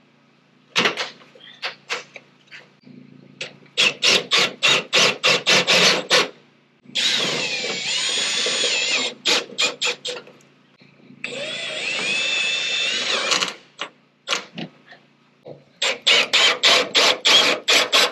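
Power drill driving screws: short runs of rapid clicking alternate with two longer stretches of the motor running and whining, its pitch shifting as the speed changes.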